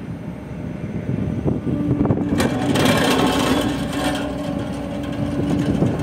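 Ammann single-drum roller compactor's diesel engine running as the machine drives over compacted soil, growing louder about two seconds in as it comes closer, with a steady hum.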